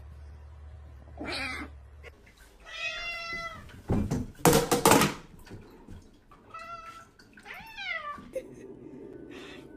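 Domestic cats meowing: three separate meows, the last one falling in pitch, with a short loud burst of noise between them.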